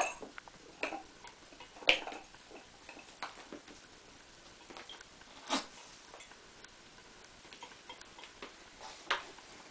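Kittens playing on a ceramic tile floor: scattered, irregular clicks and taps of paws, claws and a wand toy and balls knocking on the tiles, the sharpest about two seconds in.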